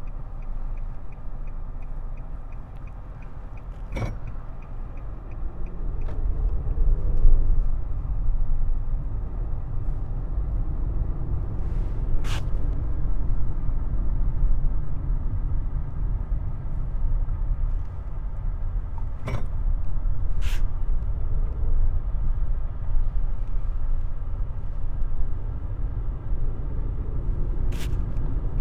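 Engine and tyre noise heard inside a Nissan sedan's cabin while driving on the open road: a steady low rumble that swells about six seconds in. A regular ticking, the turn signal, runs for the first three seconds or so, and a few single sharp clicks stand out now and then.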